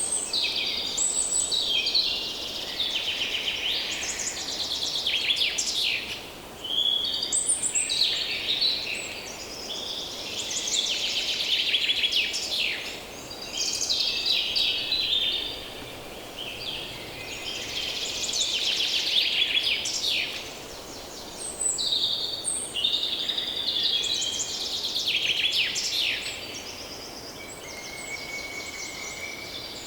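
Many songbirds singing and calling at once, a dense chorus of overlapping chirps and trills, over a faint steady background hush.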